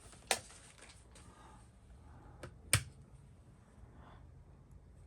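A few small sharp clicks of hands and tools at work on an electronics bench: one shortly after the start, then two close together a little before the three-second mark, the second of these the loudest. A faint low hum runs underneath.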